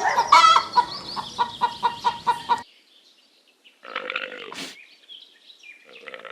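Domestic farm bird calling in a rapid run of short, harsh calls, about five a second. After a pause of about a second, a shorter burst of calls follows.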